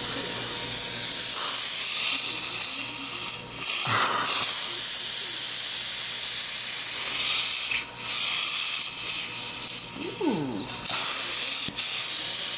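Dental suction running with a steady, high airy hiss that dips briefly a few times.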